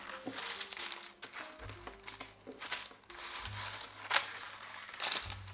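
Baking parchment crinkling and rustling as dough is shifted across it, in repeated bursts with one sharper crackle about four seconds in. Soft background music plays underneath.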